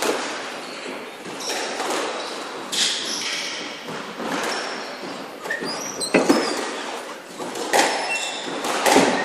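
Squash rally: the ball struck by rackets and knocking off the court walls, about six sharp echoing hits, with short high squeaks of shoes on the court floor between them.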